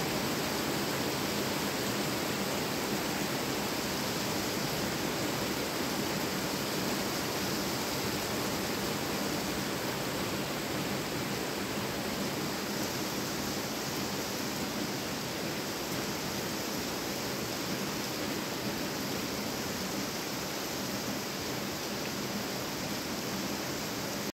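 Heavy rain falling steadily, an even hiss of rain on wet pavement and parked cars.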